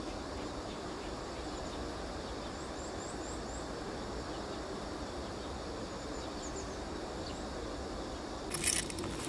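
Steady outdoor countryside ambience with a few faint high chirps a few seconds in. Near the end come sharp crunching steps as a shoe treads on spiny chestnut burrs on gravel.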